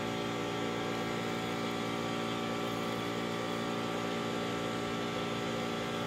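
A steady machine hum at an even pitch, unchanging throughout.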